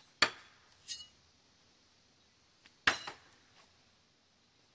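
Steel throwing knives hitting a wooden target board: two sharp strikes about two and a half seconds apart, each with a short metallic ring, and a lighter ringing clink shortly after the first.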